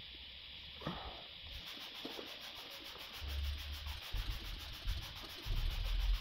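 Hand trigger spray bottle being pumped repeatedly, misting liquid onto a car's painted trunk lid: a steady hiss of quick squirts, with the pulses coming faster from about a second and a half in.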